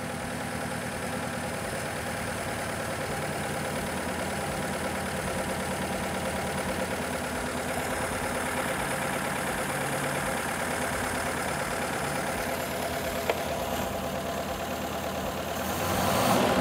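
Four-cylinder carbureted gasoline engine idling with glow plugs in place of its spark plugs, the mixture lighting off the hot plugs instead of a spark. It runs steadily, then picks up and gets louder near the end.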